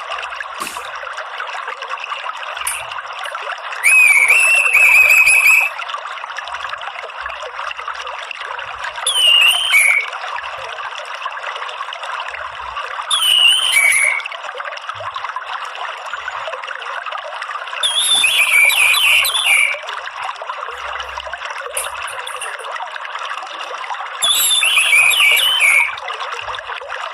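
Orange-headed thrush singing short chirping, warbling phrases, five of them a few seconds apart, over the steady trickle of running water.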